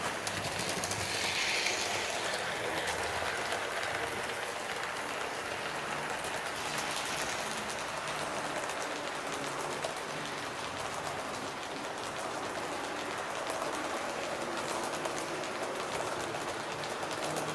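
HO-scale Fleischmann class 39 model steam locomotive and its coaches running on model track: a steady rattling hiss of small wheels on the rails, full of fine clicks.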